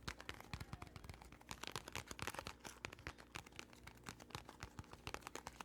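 Close-miked ASMR trigger sounds: rapid, irregular soft clicks and taps, several a second.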